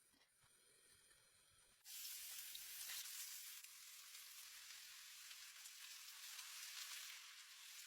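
Food frying in hot oil: a steady sizzle that starts suddenly about two seconds in.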